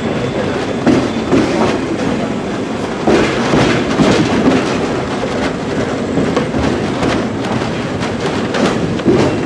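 Passenger train rolling along with a steady rumble, its wheels clacking over the rail joints at irregular intervals, heard from aboard a railcar.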